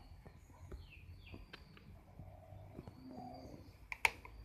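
Faint bird chirps, short falling and rising calls. About four seconds in there is a sharp click from the motorcycle's right-hand handlebar switchgear being pressed.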